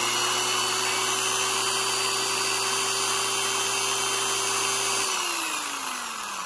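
Old Black & Decker 240-volt corded electric drill running at full speed with a steady whine. About five seconds in it is released and winds down, the whine falling in pitch.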